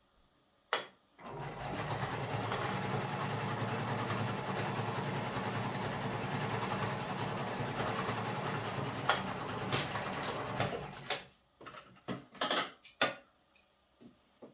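Janome electric sewing machine running steadily for about ten seconds as it straight-stitches a double-folded towel hem, then stopping. A single click comes just before it starts, and a few short clicks and rustles follow after it stops.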